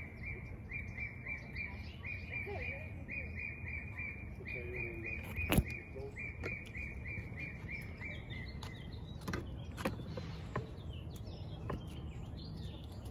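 A bird chirping a fast, even series of short notes on one pitch for about nine seconds, then fainter, higher chirps. A sharp click comes about five and a half seconds in.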